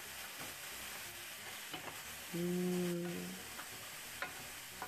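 Diced mushrooms, celery, carrots, onions and garlic sizzling as they sauté in a pan, stirred with a spatula that gives a few light scraping clicks. A little over two seconds in, a steady low hum sounds for about a second.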